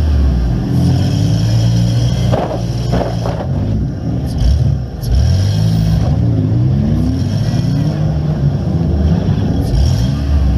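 Demolition derby minivan's engine, heard from inside the stripped cabin, revving up and easing off several times as the van manoeuvres.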